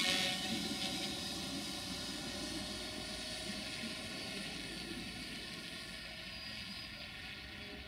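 Quadcopter drone in flight: a steady whine of several held tones from its propellers, slowly getting quieter.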